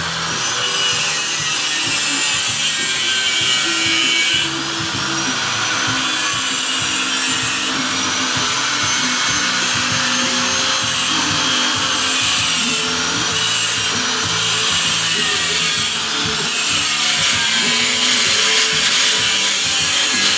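A power tool running with a few short pauses, over background music.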